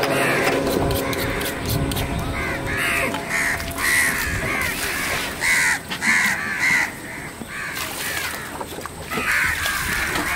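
Crows cawing over and over: a run of short, harsh calls, sometimes several in quick succession, with a brief lull about two-thirds of the way through.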